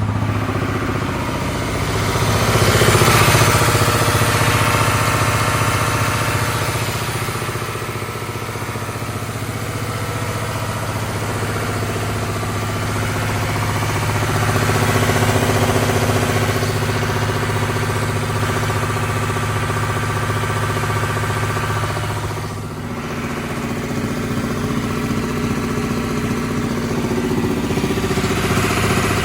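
Ford 6.7 Power Stroke V8 turbodiesel engine running steadily. It swells louder for a few seconds about three seconds in, again around the middle and near the end, with an odd sound that the owner cannot explain.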